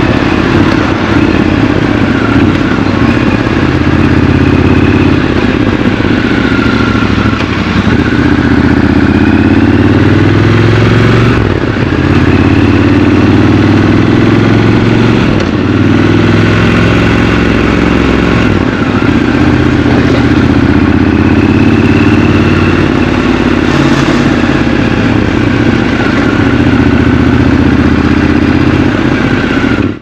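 Triumph Scrambler 1200 XC's parallel-twin engine running under way, its revs rising and falling several times with brief dips between pulls.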